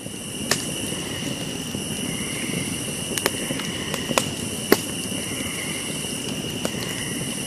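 Fire crackling: a steady hiss with scattered sharp pops, the loudest a little under five seconds in. It fades in at the start.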